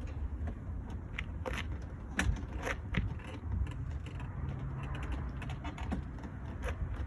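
Scattered plastic clicks and knocks as the grille retaining clips on a BMW M3's front bumper are pushed down and worked loose, over a low rumble of handling noise.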